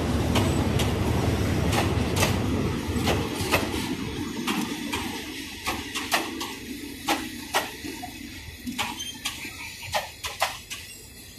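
Passenger coaches rolling slowly past on the track. A low rumble fades over the first few seconds, leaving a string of sharp clacks as the wheels cross rail joints.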